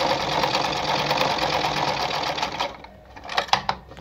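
Mercedes 340FB sewing machine running steadily while sewing a straight stitch, stopping about two-thirds of the way through. A few short clicks follow.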